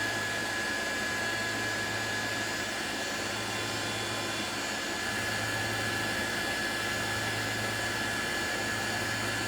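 Handheld heat gun blowing steadily, with a thin steady whine over the rush of air, drying fresh paint.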